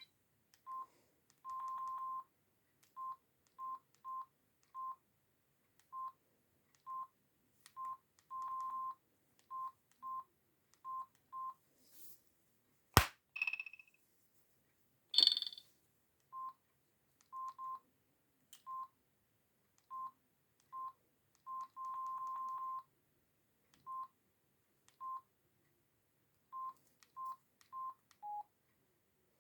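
Samsung SGH-E600 mobile phone's keypad beeps: a long, irregular string of single-pitch beeps as keys are pressed, most short and a few held for nearly a second, the last one a little lower in pitch. About halfway through there is a sharp click, then a brief higher chirp and a short noisy burst.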